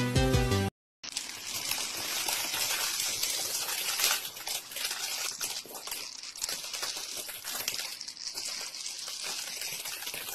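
Dry cat food kibble pouring or trickling in a steady rattling hiss of many small pellets, starting about a second in after a snatch of music that cuts off.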